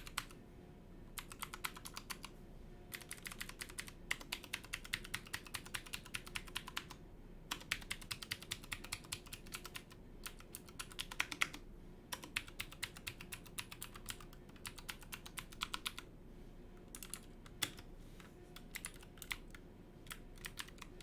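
Keywalker68 65% mechanical keyboard with clicky switches being pressed key by key in rapid runs, with short pauses between the runs, testing that every switch registers.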